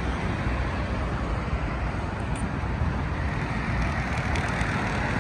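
Steady outdoor background noise: an even rumble and hiss with no single event standing out.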